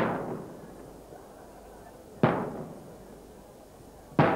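Traditional Maltese aerial firework shells bursting: three loud bangs, one at the start, one a little over two seconds in and one near the end, each trailing off in an echo.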